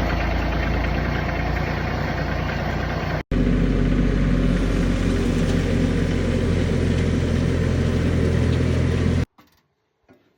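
Tractor engine running steadily and loud, in two clips joined by an abrupt cut about three seconds in; the sound cuts off suddenly a second before the end.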